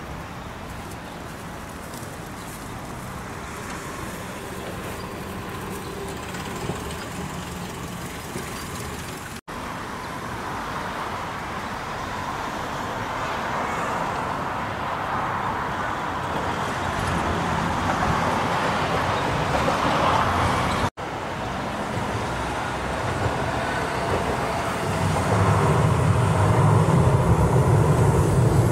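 City street traffic on a river bridge, a steady wash of road noise that slowly grows louder, cutting out briefly twice. Near the end a Hiroshima streetcar's low rumble comes in as it crosses the bridge.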